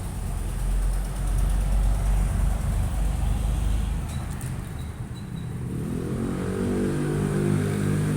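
Low, steady rumble of a running motor vehicle, with a pitched engine hum coming in about six seconds in.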